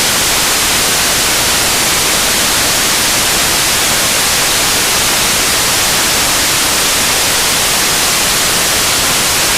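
Waterfall in full flow: a loud, steady rush of falling water.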